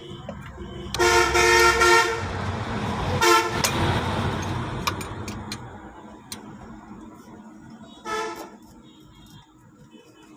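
A vehicle horn honking three times: a honk of about a second near the start, a short toot a couple of seconds later, and another short toot near the end, with the noise of a passing vehicle rising and fading under the first two.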